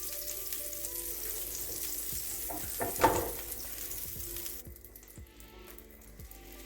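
Chicken shawarma wrap sizzling in a hot pan, with a brief louder flare about three seconds in. The sizzle drops away sharply about four and a half seconds in.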